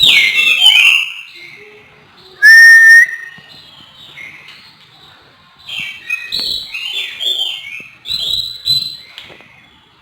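Oriental magpie-robin (kacer) singing in quick bursts of varied whistled phrases and warbles, with short pauses between them. About two and a half seconds in comes one loud, clear whistle rising slightly at its end.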